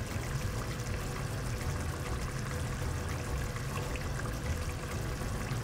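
Tomato and yogurt curry gravy bubbling steadily at a simmer in a steel pot.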